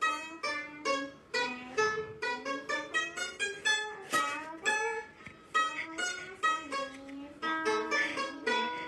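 Background music on a plucked string instrument: a melody of single plucked notes, about two to three a second.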